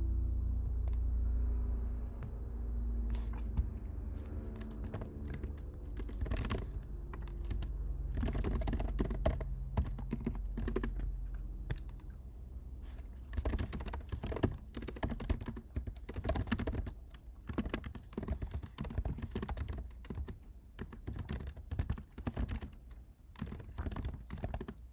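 Typing on a computer keyboard: quick runs of keystrokes with short pauses between them, busiest from a few seconds in. A low hum sits under the first few seconds and fades out.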